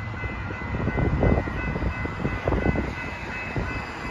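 Siemens S70 light rail vehicle pulling into a station platform, giving a steady high whine of several tones, with wind rumbling on the microphone.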